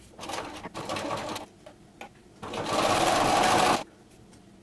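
Bernina sewing machine stitching a seam through knit fabric: a few short, uneven spurts, then a steady run of about a second and a half that stops abruptly about four seconds in.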